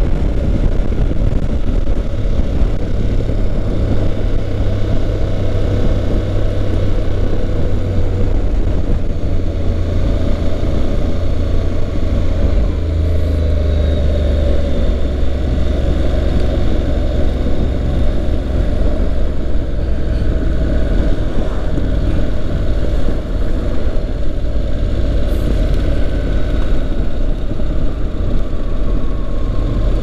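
Honda NC750X's parallel-twin engine and road noise while riding at a steady speed, heard as a continuous low rumble.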